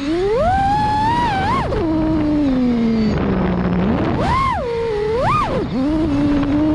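FPV freestyle quadcopter's brushless motors and propellers whining, the pitch following the throttle: a long rise in the first second and a half, a drop to a low hum around the middle, then two quick throttle punches about four and five seconds in before settling to a steady tone.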